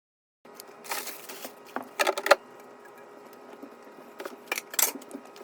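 Objects being handled: a run of sharp clicks and knocks with short rustles, the loudest knocks about two seconds in.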